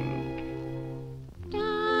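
Orchestral cartoon score: a held chord fades away, then a new sustained chord swells in about one and a half seconds in.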